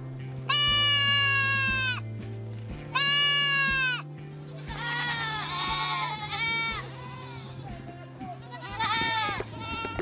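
A herd of goats bleating: a long call about half a second in, another near three seconds, several overlapping calls in the middle, and a shorter one near the end. Background music with steady low held notes plays underneath.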